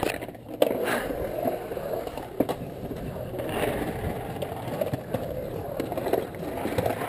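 Skateboard wheels rolling on a concrete bowl, a steady rumble, with sharp clacks of boards hitting concrete about half a second in, near two and a half seconds in, and near the end.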